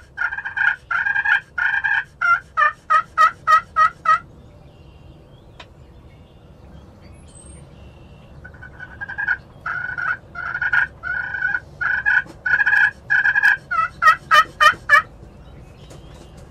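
Wild turkey calling in two loud runs of repeated notes, each starting with longer notes and quickening into short, sharp ones, with a pause of a few seconds between the runs.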